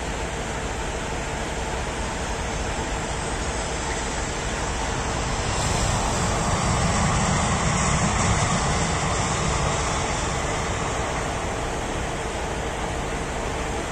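Jet airliner's engines on the landing run, a steady rumble and hiss that swells to its loudest about halfway through as the plane passes, then fades.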